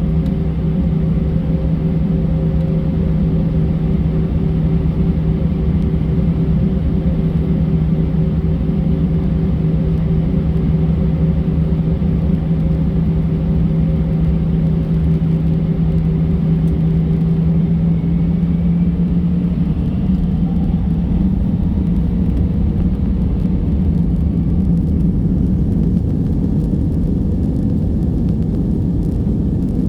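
Airbus A320 engine and airflow noise heard inside the cabin: a loud, steady rumble with a low drone. About two-thirds of the way through, the drone shifts in pitch and loses its steadiness.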